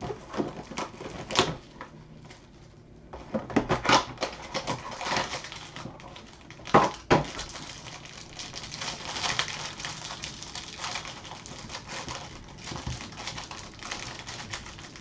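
A box of baseball trading cards being opened and its cardboard and wrappers handled. Sharp clicks and taps come in the first seven seconds, the loudest about seven seconds in, then a steady crackly rustle.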